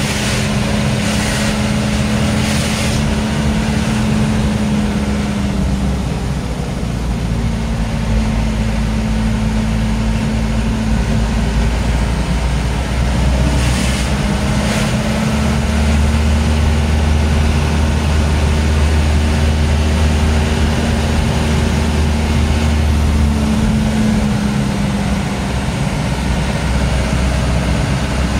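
Truck engine running steadily under way, its pitch dipping and rising a few times with the road, over a low rumble. A few short hisses come near the start and about halfway through.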